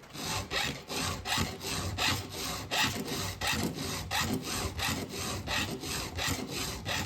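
Round file in an Oregon file guide rasping across the cutters of a chainsaw chain, hand-sharpening the teeth in quick repeated push strokes, about three a second.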